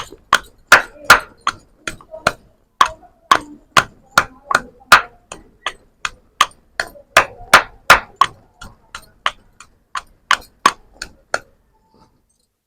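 Pestle pounding white turmeric rhizome and leaves in a mortar, about three strokes a second, stopping shortly before the end.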